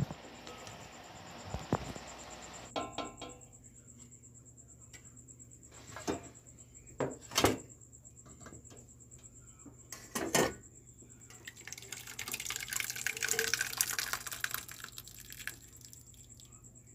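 Metal pot and stainless mesh strainer knocking and clinking several times, then the tapioca pearls and their cooking water poured from the pot through the strainer, splashing for about four seconds.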